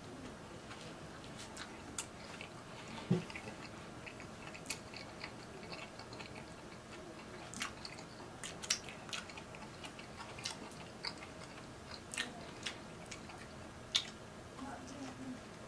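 A person chewing a Subway footlong sandwich on a soft sub roll, close to the microphone: irregular wet mouth smacks and clicks, with a sharper click about 3 seconds in and another near the end as he bites into the roll.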